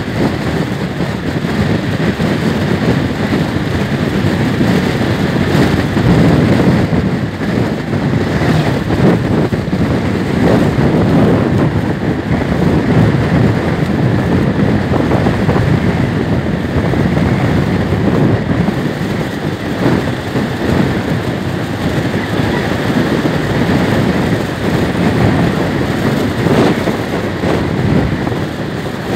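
Steady wind rushing over the microphone of a Suzuki motor scooter riding at speed on the open road, with the scooter's engine and tyre noise underneath.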